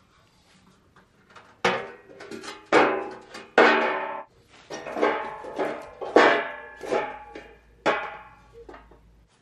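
Unsplit round firewood logs being set down one after another and knocking against each other. About a dozen hollow wooden clonks at irregular intervals, each ringing briefly, starting about one and a half seconds in.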